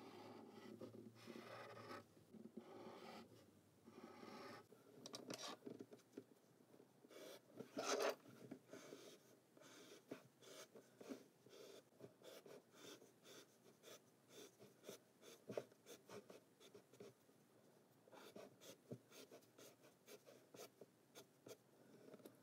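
A pen drawing on paper: longer strokes at first, then many short, quick strokes, with one louder stroke about eight seconds in.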